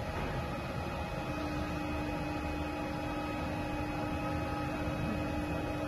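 BGA rework station running steadily through its heating profile: an even hot-air blower and fan noise with a steady hum, a lower hum tone joining about a second in.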